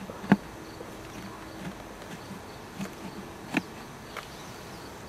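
Honeybees buzzing around an opened Kenya top bar hive, with a few sharp wooden knocks as a blade cuts comb and propolis loose from the hive sides. The loudest knock comes just after the start, and another about three and a half seconds in.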